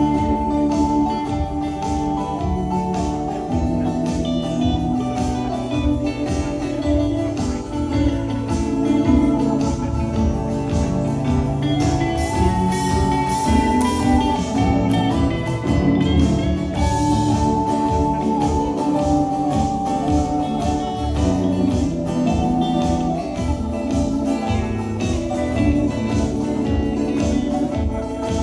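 Background music with guitar and organ over a steady beat.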